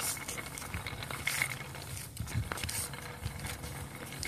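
Wooden pull-along toy train dragged over a concrete sidewalk, its wooden wheels and body rattling and clicking irregularly.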